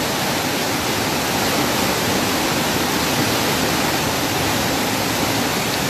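Waterfall rushing: a loud, steady, even noise of falling water.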